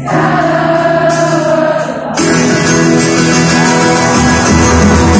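Live pop-rock band heard from the audience of an arena concert: a held sung note over guitar, then about two seconds in the full band comes in louder.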